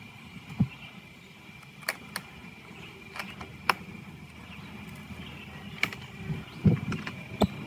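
Scattered sharp taps and knocks of a wooden beehive box and its lid being handled and closed, more of them near the end, over a steady low hum of honey bees.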